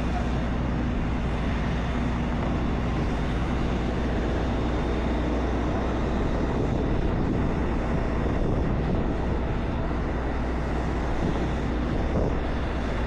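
Car engine idling steadily, a constant low hum with no change in speed.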